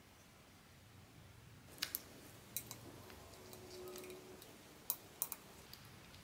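Blind-box figure and its plastic packaging being handled: a few sharp clicks and snips come in small clusters, with a faint drawn-out rubbing squeak in the middle.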